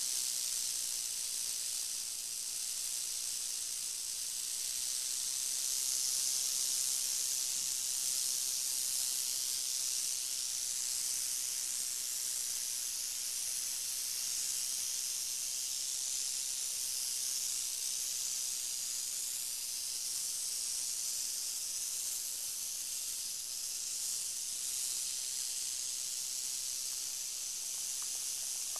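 Western rattlesnake (Crotalus oreganus) rattling its tail without pause, a steady high buzz: the snake's defensive warning.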